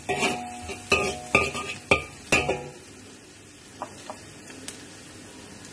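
Metal spatula scraping and knocking against a wok about five times, the wok ringing after each stroke, as chopped onion, garlic and ginger fry in butter and oil. About two and a half seconds in the stirring stops, leaving a soft sizzle with a few light clicks.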